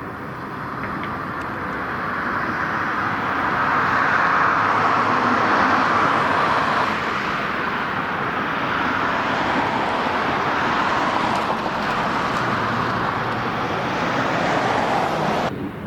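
Steady outdoor vehicle noise, a rushing sound that swells over the first few seconds and then eases a little and holds.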